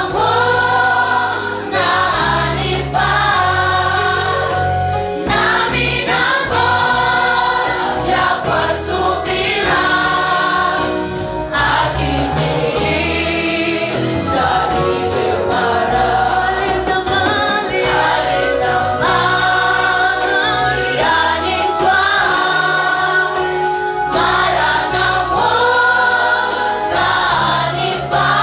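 A choir singing a gospel song in Swahili with band accompaniment: sung vocal lines over a steady bass and beat.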